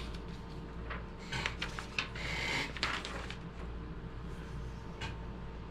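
Light handling sounds at a table: a few short clicks and taps with a brief paper rustle, as a recipe sheet is picked up and set aside.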